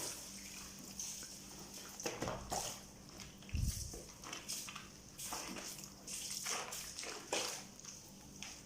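Laundry being washed by hand: wet clothes scrubbed and sloshed in water, in irregular bursts.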